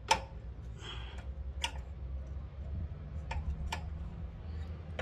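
Sharp clicks and taps of hand tools and engine parts being handled during a motorcycle top-end teardown: a loud one just after the start, then three more, with a short scrape about a second in, over a steady low hum.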